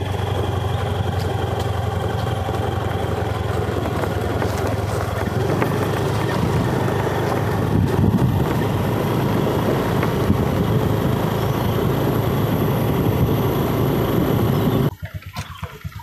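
Motorcycle engine running steadily while being ridden along a road, with wind rush over it. The sound cuts off suddenly near the end.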